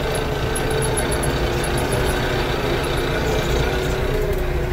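Kioti RX7320 tractor's diesel engine running steadily, heard from the seat inside the cab.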